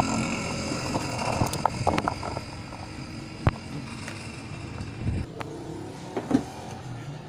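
A few light clicks and taps as a CRT TV's circuit board is handled, over a steady background rumble that drops away about five seconds in.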